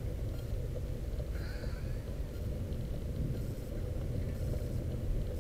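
Steady low rumble of wind on the microphone and tyres rolling on asphalt from a moving bicycle, with a short high call about one and a half seconds in.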